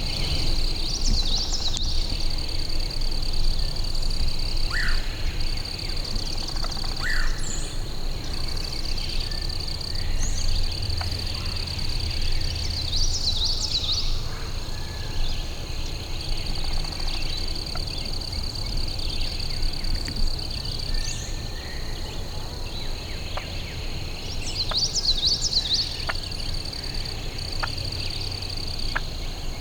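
Swamp-edge woodland ambience: a steady high-pitched animal chorus that drops out briefly now and then, with a songbird trilling three times, about twelve seconds apart, and a few short chirps, over a low rumble.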